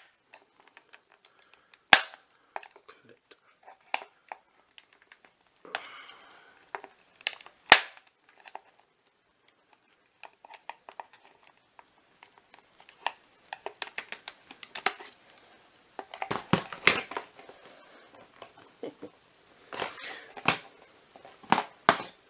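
Sharp plastic clicks, snaps and knocks as the hose and plastic housing of a Shark WandVac power nozzle are handled and prised apart, with rustling in between. The two loudest snaps come about 2 and 8 seconds in, and clusters of clicking follow later.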